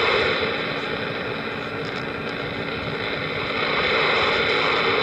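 A CB radio passing an open carrier with no voice: a steady hiss and static with a faint hum running through it.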